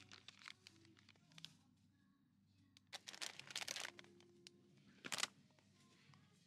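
Plastic food packets crinkling as they are handled: a longer rustle about three seconds in and a short sharp one about five seconds in, over a faint low hum.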